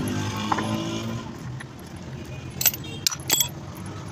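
A cluster of sharp metallic clinks, about two and a half to three and a half seconds in, as metal parts are handled in an open engine crankcase. Before them, a low hum fades out within the first second or so.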